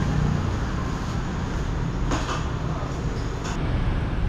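Steady city traffic rumble, with a short clatter about two seconds in and another about three and a half seconds in.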